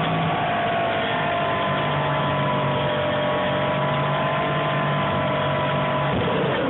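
Electric motor and propeller of a Dynam Corsair RC warbird whining steadily in flight, picked up by the onboard camera along with wind rush; the pitch sags slightly, and about six seconds in the steady whine breaks up into rougher noise.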